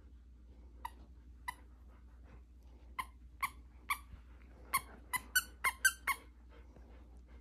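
Squeaker in a plush dog toy squeaking as a Bluetick Coonhound chews it. There are two single squeaks about a second in, then a run of quicker, louder squeaks between about three and six seconds in.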